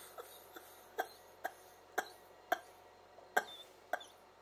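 A run of short, sharp clicks, roughly two a second but unevenly spaced, over a faint steady background.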